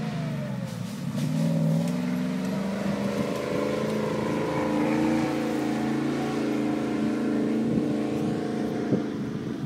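Range Rover's engine revving, its pitch rising and falling, with a sharp knock near the end.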